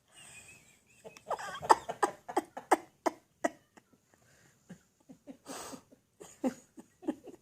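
Sleeping pit bull blowing her loose lips, a fast run of flapping puffs that slows down, then a second, sparser run, after a breathy exhale at the start.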